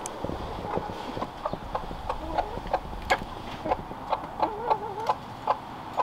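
Broody hen clucking in a steady string of short clucks, about two or three a second, with a low wavering note about four and a half seconds in: the grumpy, cross clucking of a hen kept off her nest while broody.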